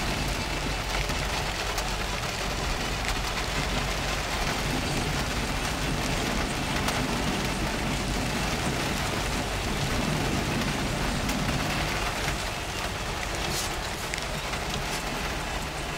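Heavy rain falling on a car's roof and windscreen, heard from inside the moving car as a steady hiss with scattered ticks of drops, over the car's low rumble.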